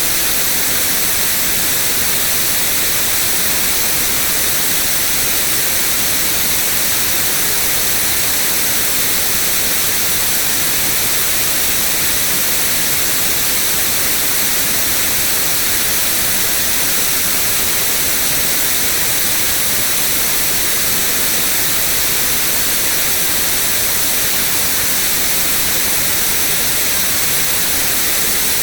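Steady white noise: an even, unchanging hiss, heaviest in the treble.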